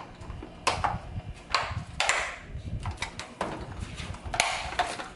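Snap-in cover of a washing machine's main control board being worked and pressed into place: a string of irregular sharp clicks and knocks as it is pushed and lined up over the wires.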